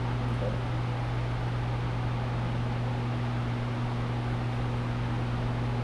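An electric blower or fan motor running steadily: a low, even hum under a constant rush of air.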